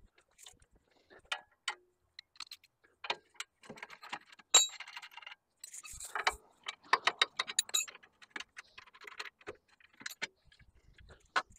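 Metal hand tools and parts clinking and clicking in irregular, scattered strikes, some with a short ring.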